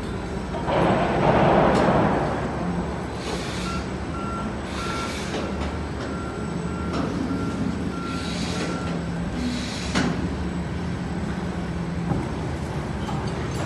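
Cargo-handling machinery during steel billet loading: a steady low hum of crane machinery, with a warning beeper sounding repeatedly for several seconds in the middle. Short hissing bursts and a few sharp knocks come through, and there is a louder noisy surge about a second in.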